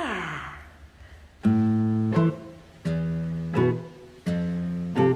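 Background music: guitar chords struck about every second and a half, each held briefly and followed by a quick short stroke, in a slow, halting rhythm.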